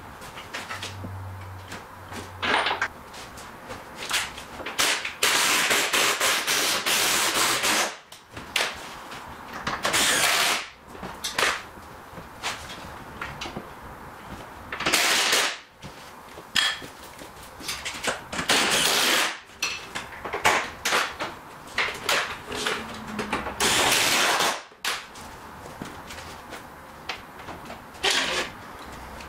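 Mechanic's tools working under a car: a steady run of metallic clicks and knocks, broken by several loud rasping bursts lasting one to three seconds.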